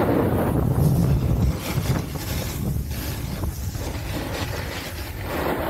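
Wind buffeting the microphone while riding fast down a ski slope, with a steady rushing hiss of snow underneath.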